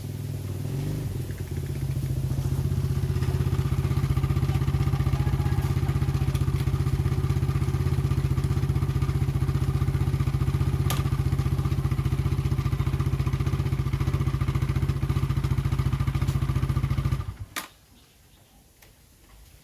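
Kawasaki D-Tracker 125 single-cylinder engine running. It picks up over the first few seconds, then holds a steady idle, and is switched off near the end, followed by a single click. The engine is running again after its partly clogged fuel injector was cleaned to cure a no-start.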